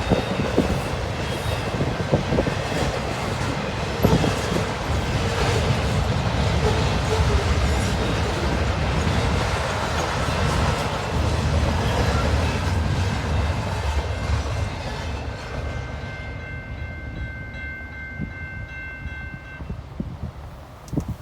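Freight train passing close by: a heavy rumble with wheels clacking over rail joints. The noise fades after about 14 seconds as the train goes by, and a steady high tone sounds for a few seconds near the end.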